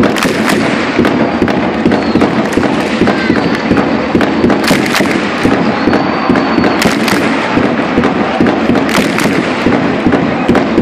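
Ice hockey arena crowd celebrating a goal: dense, loud clapping from many hands held overhead over a mass of shouting and chanting voices. A few sharper claps ring out close by.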